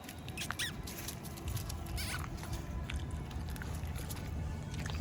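A few short, high-pitched animal squeaks, rising in pitch, about half a second in and again about two seconds in, over a low steady hum.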